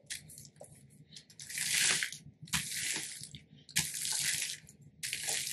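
Hands rubbing and smoothing hotfix-rhinestone transfer tape down onto a rhinestone template: a series of swishing strokes, about one a second.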